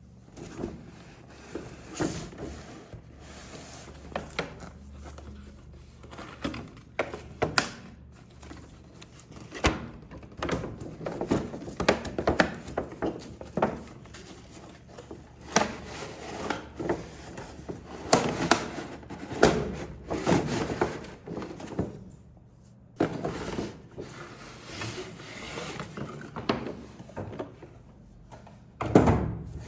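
Close-up handling sounds from unboxing a remote-control toy car: irregular rubbing, rustling and light knocks of packaging and plastic parts.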